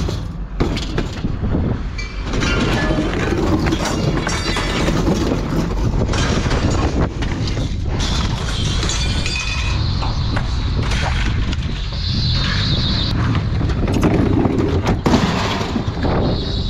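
Mixed scrap metal being thrown off a truck, clattering and crashing irregularly as pieces land on a pile, over a steady low rumble.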